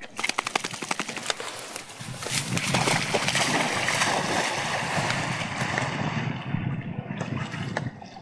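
A dog rushing through long grass, then from about two seconds in, loud continuous splashing as it plunges into the water and swims.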